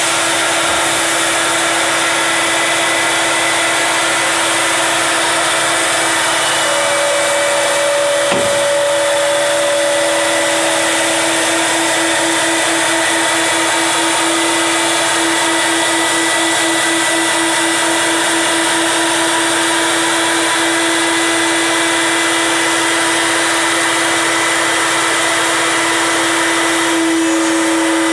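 Five-axis CNC stair machine's router spindle cutting through three stacked 2x10 boards, 4.5 inches of wood, running steadily under load with one strong constant tone over dense machine noise.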